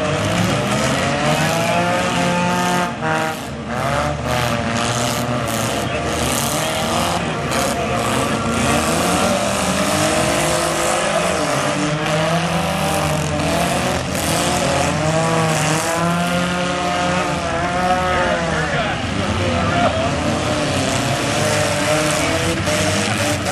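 Engines of small four-cylinder demolition derby cars revving hard, many pitches rising and falling over one another, with several sharp bangs in the first several seconds.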